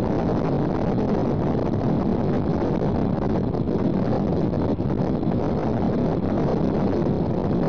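Steady rushing noise of a passenger train running at speed, heard from an open carriage window, with wind buffeting the microphone.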